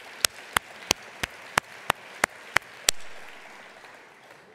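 Sharp, loud hand claps close to a podium microphone, about three a second, stopping about three seconds in, over audience applause that then dies away.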